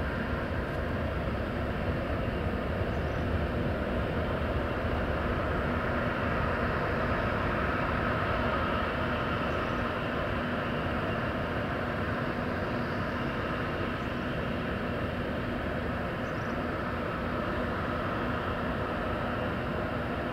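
Boeing 747's four jet engines running as the jet rolls along the runway: a steady rumble and hiss with a faint constant hum, swelling slightly partway through.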